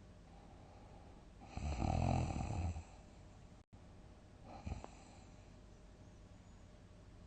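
A sleeping person snoring heavily: one loud snore lasting about a second and a half, then after a gap a short, fainter breath sound. The sound cuts out completely for a split second between them.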